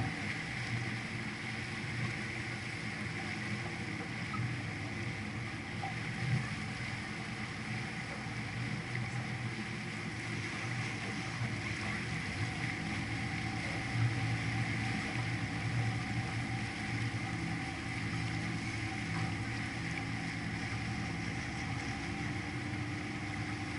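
Canal tour boat's motor running steadily under way: a continuous low hum with a fainter higher tone above it.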